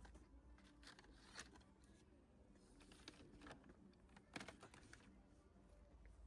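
Near silence with a few faint, scattered clicks and rustles, the sharpest about a second and a half in and again near two-thirds of the way through.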